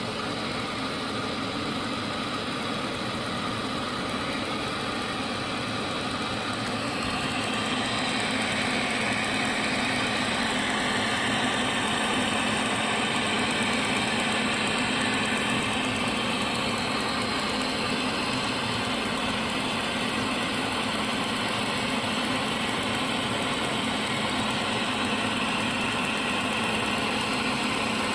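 Automatic straight seam welding machine running during wire-filled welding: a steady hum over a constant hiss, getting a little louder and brighter from about eight seconds in.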